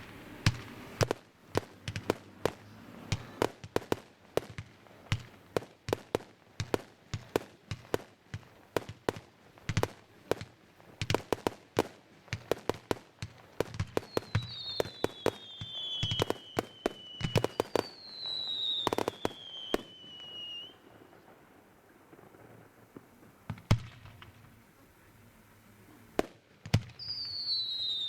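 Fireworks going off: a dense run of sharp cracks and bangs, several a second, that thins out past the middle. Falling whistles from whistling fireworks sound twice near the middle and once more near the end, with a few single louder bangs in between.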